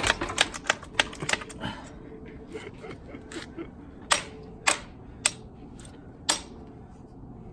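Hand hammer striking the metal of an old, dirt-caked engine to drive a stuck part out. A quick run of taps for the first couple of seconds is followed by four harder, spaced blows.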